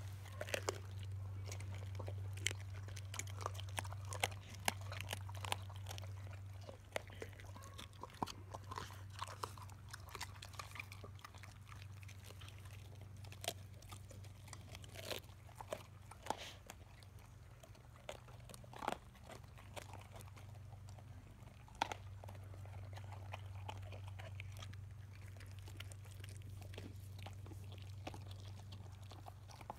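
Boxer-mix dogs chewing and crunching raw salmon heads, with irregular wet bites and bone crunches. A steady low hum runs underneath and drops away for a stretch in the middle.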